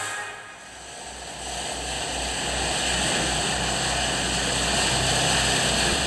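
Boat at sea: a low engine throb pulsing about three times a second under a steady rush of wind and water, swelling in after a brief dip.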